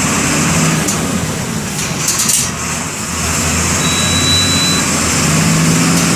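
MWM 6.12 TCE six-cylinder inline turbodiesel of a Volksbus 17-230 bus running steadily. Its sound dips for a moment about two and a half seconds in, then picks up again. A brief thin high tone sounds about four seconds in.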